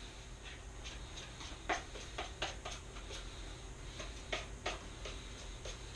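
A spatula tapping and scraping in a frying pan under a pancake: a dozen or so light, irregular clicks.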